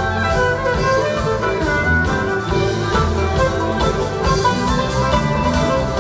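Live band playing, heard from the audience: fiddle over a full band with drum kit, loud and steady.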